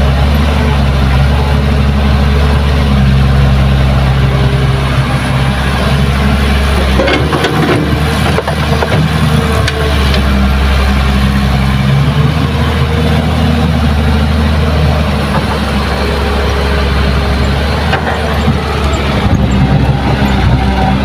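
Kobelco SK200 hydraulic excavator's diesel engine running steadily as it works, digging and swinging loads of earth and rock over a dump truck. Around a third to halfway in the engine note wavers and short clatters come through as the bucket empties into the truck bed.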